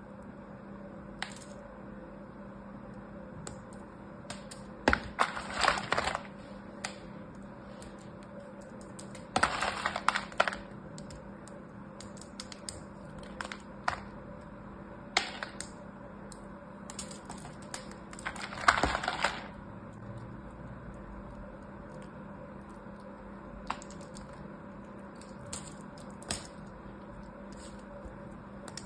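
Thin carved soap shavings being crushed and snapped between the fingers, giving three short spells of crisp crackling and scattered single ticks in between.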